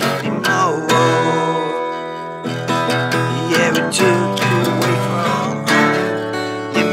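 Acoustic guitar strummed in a country-style song, with a man singing.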